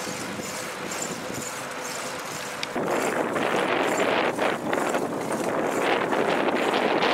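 Wind rushing over the microphone of a camera riding on a moving bicycle, with tyre and road noise. It steps up suddenly and clearly louder about three seconds in.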